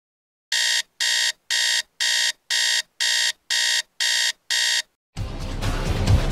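iPhone alert tone: nine identical electronic beeps, about two a second, as the phone lights up with a new notification. Music starts about five seconds in.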